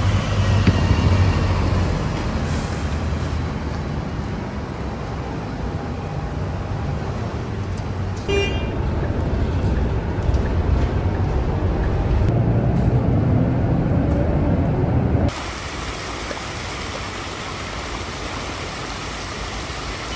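City street ambience with traffic running, a brief high tone about eight seconds in, and an abrupt cut to quieter, steadier street noise about fifteen seconds in.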